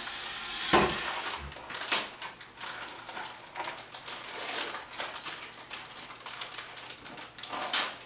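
Gift wrapping paper crinkling and tearing in irregular rustles and rips as a small child picks it off a present, with a thump just under a second in.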